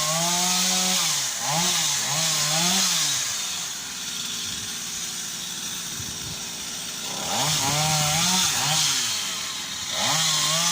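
Chainsaw revving up and down in repeated bursts, dropping to a lower idle for a few seconds in the middle before revving again.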